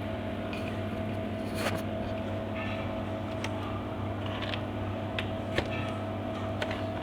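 Steady electrical hum with several short, sharp clicks and faint rustling, as of small parts and cables being handled on a repair bench.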